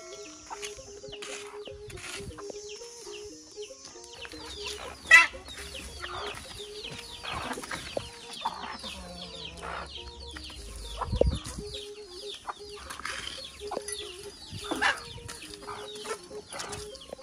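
Chickens clucking close by, with a sharp crack about five seconds in.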